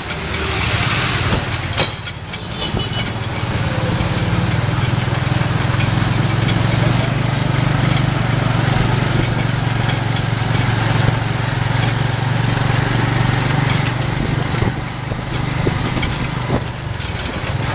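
Motorcycle engine of a moving tuk tuk running steadily, growing louder about three seconds in, with road and street-traffic noise around it.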